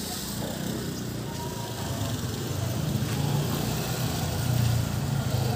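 A small motorcycle engine running close by, growing louder over the last few seconds.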